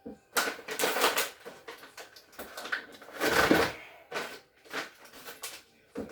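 Refrigerator shelves and food being shifted and handled, giving irregular rustling and clattering that comes and goes in several bursts.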